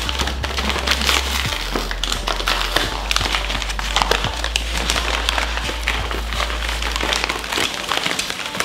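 Paper padded mailer crinkling and crackling as it is handled, torn at the flap and pulled open by hand, with background music underneath.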